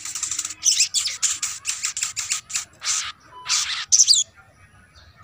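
Sunbird singing a fast, high chattering song of short, sharp notes in quick bursts, several a second, breaking off about four seconds in.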